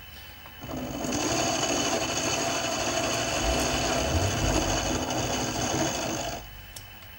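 Benchtop mini milling machine running: the spindle motor spins up, the end mill cuts a slot in a metal part held in the vise, and the motor stops abruptly about six seconds in, with a single click just after.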